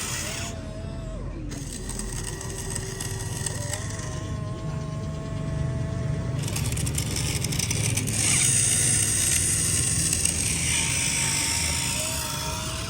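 Small electric motors whining in steady tones that start and stop several times, over a low rumble and hiss.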